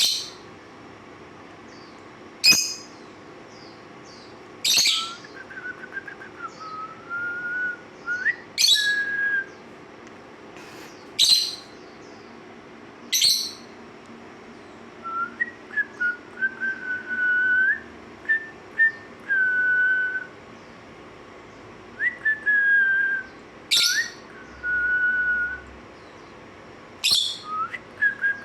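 Pet lovebirds calling: about eight loud, shrill chirps spaced a few seconds apart, with shorter, steadier whistled notes in between from about five seconds in.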